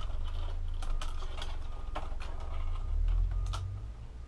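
Scattered light clicks and rustles of flat flex ribbon cables and plastic parts being handled inside an opened Epson WF-3640 inkjet printer, over a steady low background hum.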